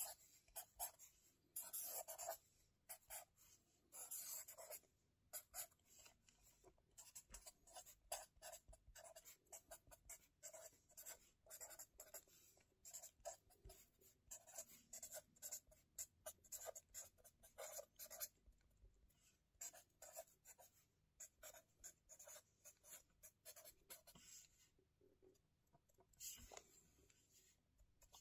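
Faint scratching of a pen on spiral-bound lined notebook paper, in many short strokes as it writes and draws lines, pausing briefly twice in the later part.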